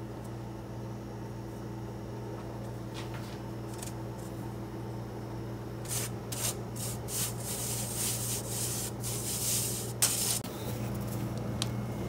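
Flour being rubbed by hand through a stainless-steel mesh sieve: a run of quick, scratchy strokes through the second half, with one sharp knock near the end, over a low steady hum.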